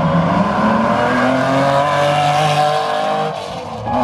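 Race car accelerating hard away from the start line. The engine note climbs and drops back at each upshift, and it fades near the end.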